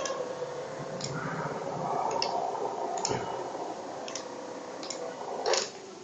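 30 A relays on the controller board clicking at irregular intervals, roughly once a second, as the car wiper motors are switched by remote control, with a louder click about five and a half seconds in. The geared wiper motors hum steadily under the clicks.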